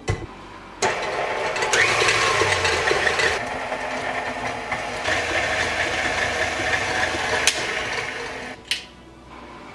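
KitchenAid Ultra Power tilt-head stand mixer running with its wire whip, whisking cream into beaten eggs in the steel bowl. It starts about a second in and shuts off near the end, with a sharp click just after.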